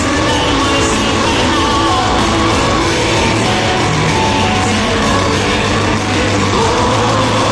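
Power metal band playing live, with drums, electric guitars, bass and keyboards, and a male lead singer singing over them.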